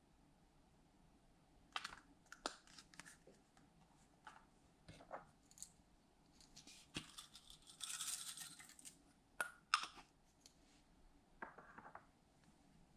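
Small plastic tubes of glitter and sequins handled and opened with scattered faint clicks and taps. About eight seconds in comes a hiss lasting about a second as plastic sequins are shaken out into a glass dish.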